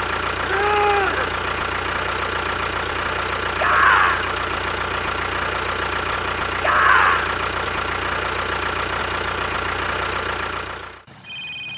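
A motor-vehicle engine running steadily at idle, with three short voice-like calls over it. Just before the end the engine cuts off abruptly and a steady electronic tone with several pitches begins.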